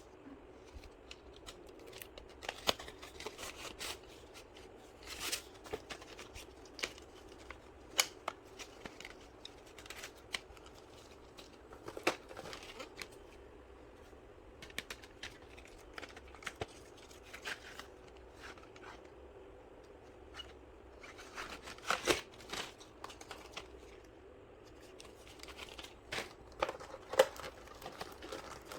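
Stationery items and their packaging being handled and unpacked: irregular clicks, taps and brief rustles, with a louder cluster about three quarters of the way through.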